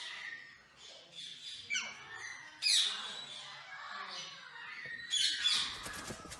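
Alexandrine parrots calling with harsh squawks and screeches, several falling in pitch. The loudest call comes a little under three seconds in, and a quick run of sharp screeches follows about five seconds in.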